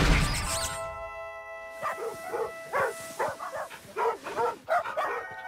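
A loud crash and splash as a wooden ship's hull rams into ice, with a deep rumble dying away over about a second. From about two seconds in, a team of cartoon sled dogs barks rapidly, about a dozen short barks over three seconds, over background music.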